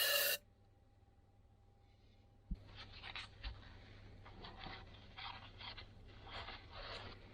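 Faint intermittent scraping and rubbing of hands working the parts of a disassembled clutch master cylinder. It starts with a click about two and a half seconds in, after a near-silent stretch. A louder sound cuts off just at the start.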